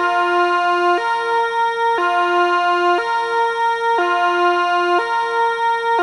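Kockum Sonics Delta 4 electronic siren sounding the Swiss fire alarm, the Cis-Gis two-tone signal. It alternates between a lower and a higher tone, each held for about a second.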